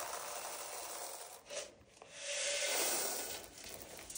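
Rustling and scraping noise that dips briefly a little under two seconds in, then swells again and fades near the end.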